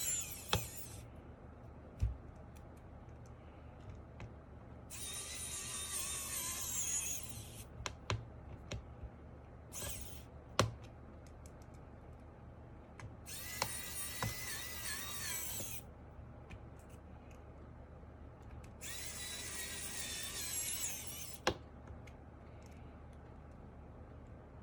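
Small electric screwdriver whirring in short runs of two to three seconds, about five times, driving or backing out the screws of a mechanical keyboard's case and plate. Sharp clicks and knocks fall between the runs.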